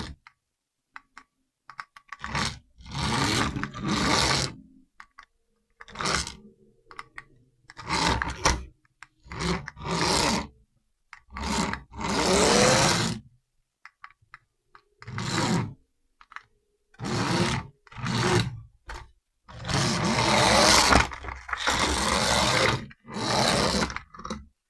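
Toy radio-control car's small electric motor whirring in short bursts, about a dozen, each lasting half a second to two seconds, with silent gaps between; in one burst the pitch rises as the motor spins up.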